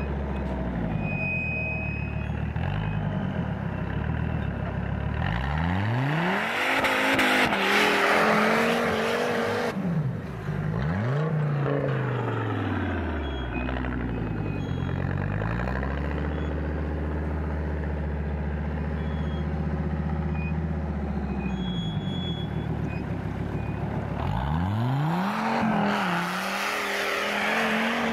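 Off-road buggy engine idling, then revved hard as the buggy drives up a steep snow bank. The pitch climbs steeply about five seconds in, holds high for a few seconds and falls back, revs briefly again, settles to idle, and climbs again near the end.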